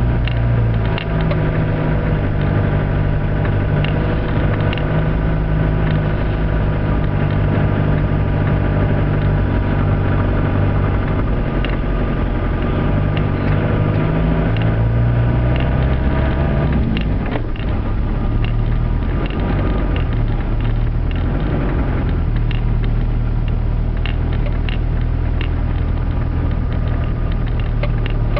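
Land Rover Discovery 300Tdi's 2.5-litre four-cylinder turbodiesel running steadily at low speed, heard from inside the cab, with scattered short clicks. The engine note shifts about two-thirds of the way through.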